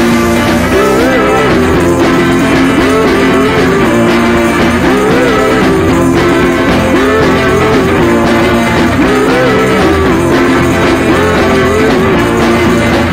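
Background rock music with a repeating guitar riff.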